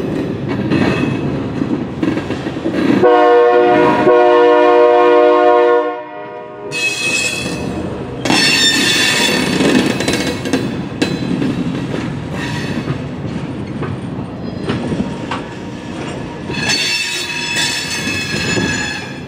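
A rail train's horn sounding at a grade crossing, its loudest blast held for about three seconds a few seconds in. High-pitched squealing and the rumble of the approaching Herzog tie handling train come after it.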